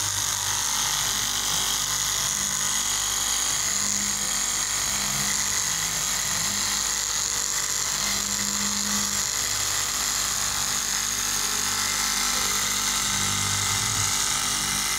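KM straight-knife cloth cutting machine running steadily with a high-pitched whine, its electric motor driving the upright reciprocating blade through a stack of fabric layers.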